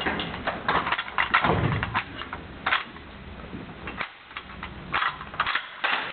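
Steel parts of an M2 .50-calibre machine gun clicking and clanking as they are handled and fitted together by hand: a run of sharp clicks and knocks, busier at the start and again near the end, with a quieter spell in the middle.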